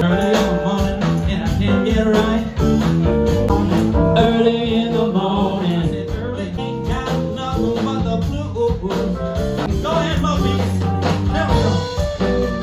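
A band playing a blues-rock song: guitar and bass with a singing voice over a steady beat.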